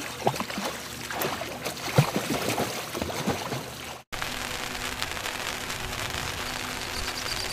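Pool water lapping and splashing in quick small drips and slaps. After a break about four seconds in, it gives way to a steady hiss of rain falling on the pond's surface.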